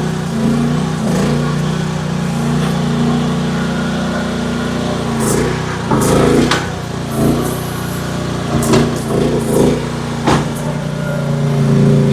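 AGT H12 mini excavator's engine running, its pitch and load shifting as it works, with several sharp knocks and cracks from the bucket on wood about halfway through and again near the end.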